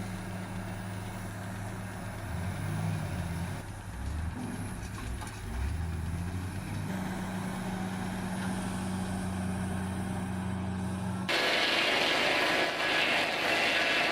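An engine running steadily with a low hum. About eleven seconds in it cuts off abruptly and a louder, hissing machine noise takes over.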